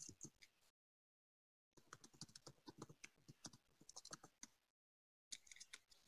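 Near silence broken by faint, irregular clicking and tapping in three short stretches.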